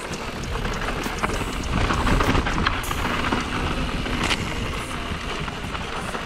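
Mountain bike riding down a dirt singletrack: wind on the camera microphone and tyres rolling over dirt and leaves, with scattered knocks and rattles from the bike over bumps.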